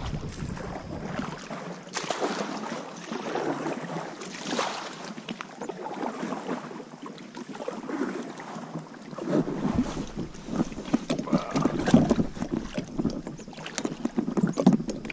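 Plastic sit-on-top kayak being paddled across a river: irregular paddle splashes in the water, with a little wind on the microphone at first. In the second half the hull comes up against a muddy bank, and there are sharper bumps and knocks against the kayak.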